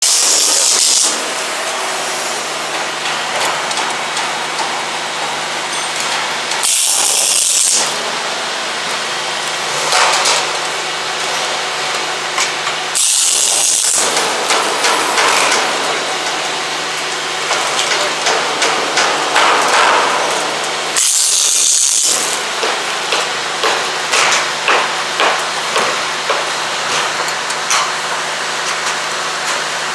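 Stud welding gun firing shear studs through steel floor decking: four short bursts of crackling arc, each about a second long and several seconds apart. Between welds there is a steady background hum with scattered clicks and knocks.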